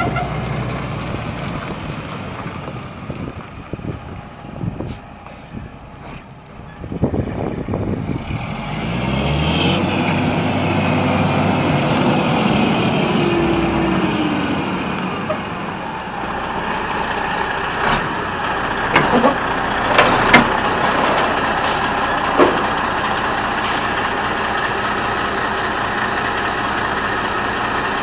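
Peterbilt 379 semi tractor's Detroit Series 60 inline-six diesel engine, revving up and dropping back in the first half and then running steadily as the tractor backs under an empty log trailer. Several sharp knocks come in the second half.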